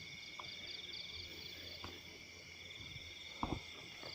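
Crickets and other night insects chirping steadily in high, pulsing trills, with a short knock about three and a half seconds in.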